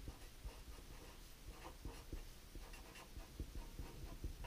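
Felt-tip marker writing on a sheet of paper: a series of faint, short scratching strokes as the letters are written out.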